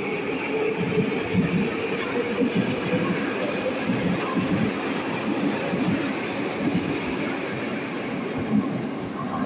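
Metro train pulling out of the station and running past the platform: wheels and motors, with a faint whine that sinks slowly in pitch. The noise starts to fade near the end as the last car goes into the tunnel.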